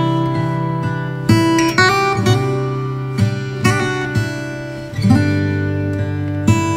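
Background instrumental music: plucked and strummed string chords, a new chord struck every half second to second.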